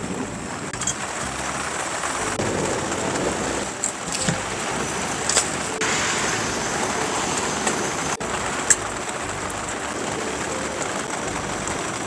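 Steady hiss of a portable gas camping stove burning, mixed with rain on a tarp, with a few light clicks scattered through.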